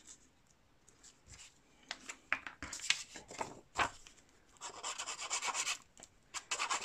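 Sheets of paper handled with a few light clicks and rubs, then the tip of a liquid glue pen scribbled quickly over the back of a sheet of kraft paper: a fast scratchy rubbing that starts about four and a half seconds in, pauses briefly and starts again near the end.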